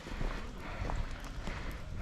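Footsteps of a person walking, about two steps a second, heard close to a body-worn microphone.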